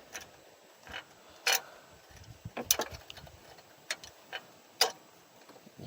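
Scattered sharp metallic clicks and taps, about six at irregular intervals, from handling the long bolt and belt tensioner assembly as they come out of the engine.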